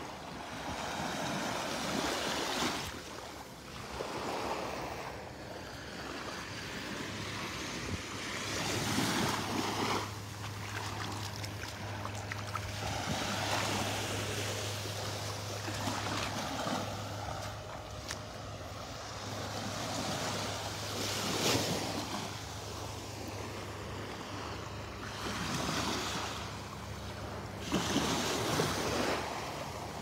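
Low waves washing up onto a sandy beach, the wash swelling and falling back every few seconds. A faint steady low hum comes in about seven seconds in.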